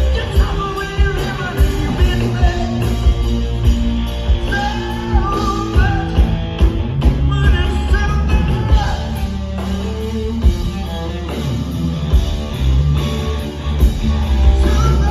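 Rock band playing live and amplified: electric guitar, drums and heavy bass, with vocals singing over them.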